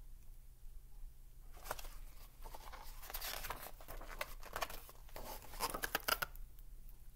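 Pages of a hardcover picture book being turned and the book handled: a run of papery rustles and flaps starting about a second and a half in, loudest near the end.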